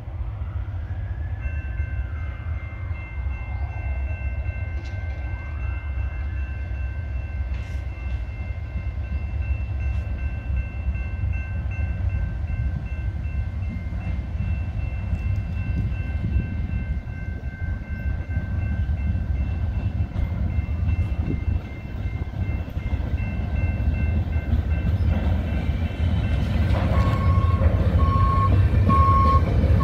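Herzog rail work train approaching: a low rumble of engine and wheels that grows steadily louder as it nears. Steady high-pitched tones are held through most of it, and a rapid pulsing beep starts near the end.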